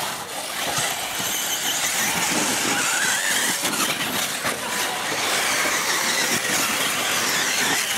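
Radio-controlled model race cars running round the track, their small motors whining high and rising and falling in pitch as they speed up and slow for corners.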